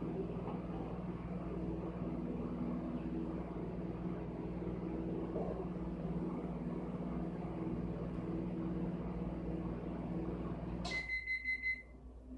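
Microwave oven running with a steady hum, which cuts off about eleven seconds in, followed at once by a quick run of high beeps: the end-of-cycle signal that the timer has run out.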